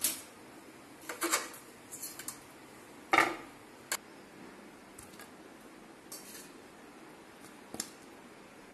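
Clinks and knocks of a metal cooking pot and a ceramic plate as cooked sweet potatoes are lifted out and set down on the plate: about ten short taps at irregular intervals, the loudest about three seconds in.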